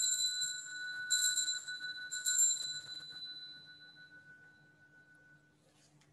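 A small altar bell struck three times, about a second apart, each strike ringing on and fading over a few seconds. It is rung at the elevation of the consecrated bread, just after the words of institution in the Eucharistic prayer.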